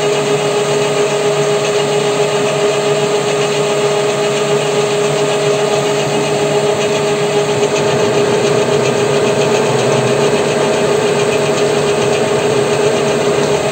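WM210V benchtop lathe running steadily under power feed, its motor and gear train giving an even hum with a steady whine, as the carriage draws a cutter along the shaft on a spline-cutting pass.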